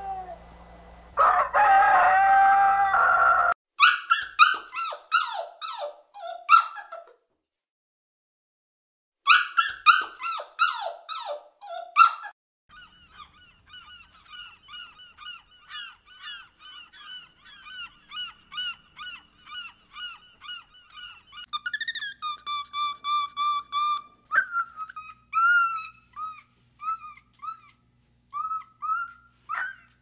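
A rooster crows once near the start, followed by several runs of repeated calls from other birds: falling calls in two bursts, then a long series of quick short calls, several a second.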